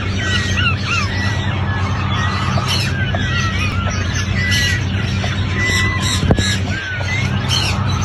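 A flock of small farm-raised birds chirping and calling over one another in many short, repeated calls, over a steady low hum.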